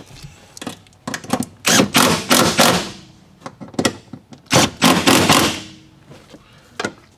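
Makita cordless impact driver hammering bolts down, in three runs, the longest about a second. The bolts are the factory bolts, being driven in to fix an amplifier rack to the floor.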